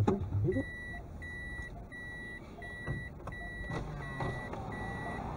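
Electronic warning beeper giving a steady high-pitched beep over and over, about one and a half beeps a second, starting about half a second in, over low traffic noise.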